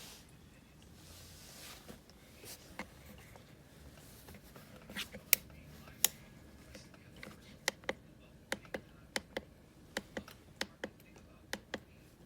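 A series of sharp clicks: a few single ones, then from about halfway through a run of quick double clicks, each pair a fraction of a second apart.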